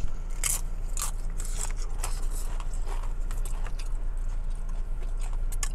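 A person chewing a mouthful of taco-stuffed pasta shell close to the microphone, with irregular wet smacking clicks, over a steady low hum in a car cabin.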